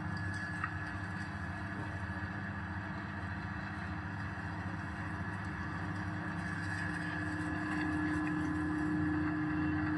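Powder grinding mill running steadily: a dense motor hum with a steady whine over it, getting a little louder near the end.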